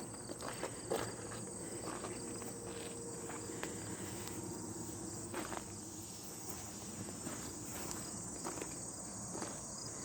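Insects trilling steadily at a high pitch, with scattered light taps and crunches; the motorcycle engine is not running.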